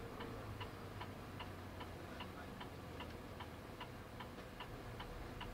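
A vehicle's turn-signal indicator ticking evenly, about two and a half ticks a second, over the low hum of the engine inside the cab.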